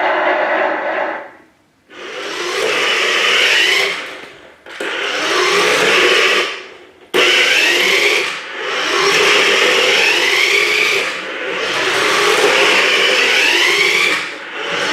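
Electric motor and gears of a remote-control toy car whirring in repeated bursts of about two seconds, the whine rising in pitch within each burst as the car speeds up, with brief stops between runs.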